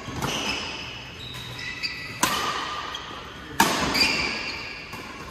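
Badminton rally in a large echoing hall: two sharp racket strikes on the shuttlecock about a second and a half apart, with short high squeaks of court shoes on the mat around them.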